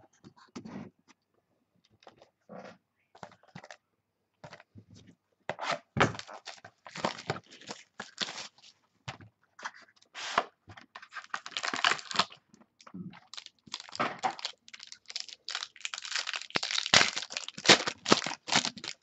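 Packaging on a sealed box of trading cards being torn open and crinkled by hand: irregular tearing and rustling, sparse at first and then busier and louder from about a third of the way in.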